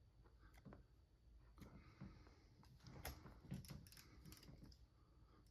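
Near silence, with faint scattered clicks and rubs from hands adjusting a rubber slip-on vane on an arrow shaft.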